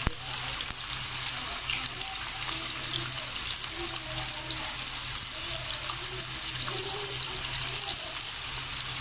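Raw potato fries sizzling steadily in hot oil in a deep pan, freshly dropped in, a constant bubbling hiss. A single sharp click comes right at the start.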